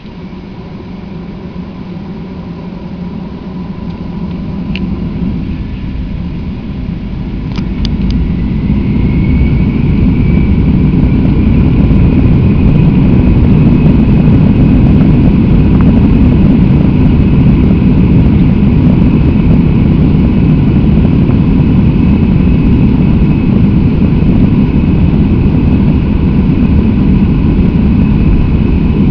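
Airbus A319 jet engines spooling up to takeoff power, heard from inside the cabin. The rumble swells over about eight seconds, then a whine climbs and settles into a steady loud roar. A few sharp clicks come at about five and eight seconds in.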